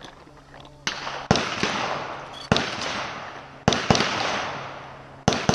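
Shotgun reports on a clay-target range: five sharp shots at irregular intervals, each trailing off in a long rolling echo.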